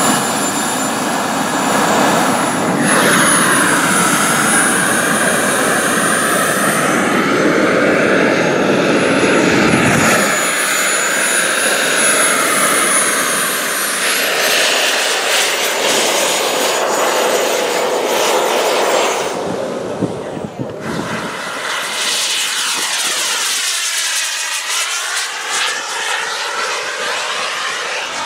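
Radio-controlled model aircraft engine running in flight, its pitch rising and falling as the plane manoeuvres and passes, with a thin high whine holding steady through the first half.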